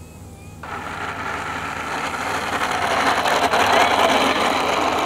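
E-Flite 1.2 m P-51D Mustang RC model touching down on asphalt about half a second in, then its landing-gear wheels rolling with a loud, rattling noise that grows louder as the plane rolls out toward the camera.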